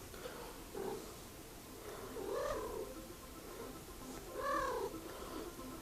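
A dog giving short high calls that rise and fall, a faint one near the start and two clearer ones about two seconds apart.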